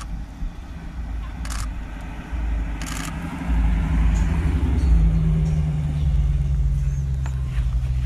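Dodge Challenger Hellcat's supercharged V8 engine running as the car drives up the street and past, growing louder about halfway through into a steady low drone. Three short clicks come in the first three seconds.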